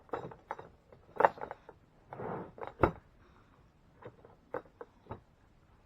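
Scattered clicks, knocks and a short rustle of hands handling a new jackhammer's carrying case and its packaging during unboxing, with the sharpest knocks about a second in and just before three seconds.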